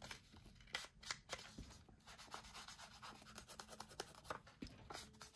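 Faint scratchy rubbing and scattered light taps of hand-worked paper at a craft table.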